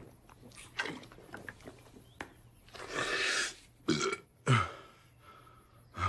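A man belches after drinking from a carton: the loudest burp, about four and a half seconds in, drops steeply in pitch, with shorter throat and breath sounds before it.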